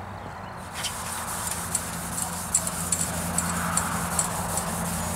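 Red Scotch-Brite pad scrubbed by hand back and forth over a WD-40-wetted aluminium grill shell, a rhythmic scratchy rubbing that starts about a second in, over a low steady hum.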